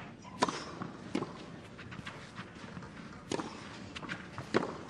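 Tennis ball struck by rackets, starting with a serve and followed by the rally: four sharp pops spaced about one to two seconds apart, over a faint background.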